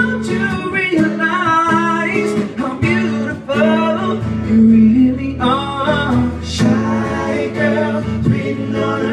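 A live pop ballad: male singing over a strummed acoustic guitar.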